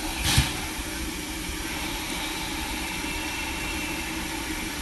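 Geared Shay steam locomotive standing with steam hissing steadily from low on its side, with one short, louder burst about a third of a second in.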